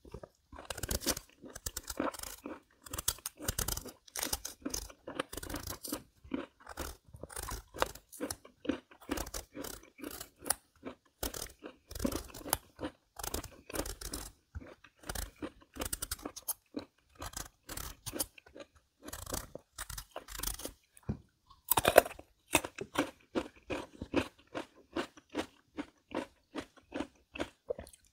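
Close-miked crunching and chewing of crisp chamoe (Korean melon) flesh: a continuous run of wet, crunchy bites and chews, with one louder crunch a little over three-quarters of the way through.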